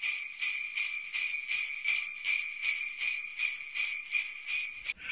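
Jingle bells shaken in a steady rhythm, about three shakes a second, ringing high and stopping just before the end.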